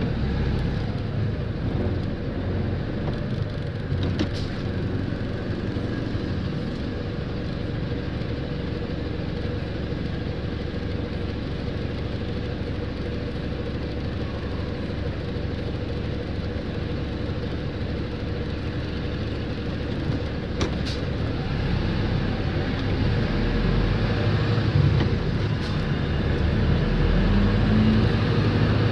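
Steady engine and road noise from a vehicle moving through city traffic, growing louder over the last few seconds.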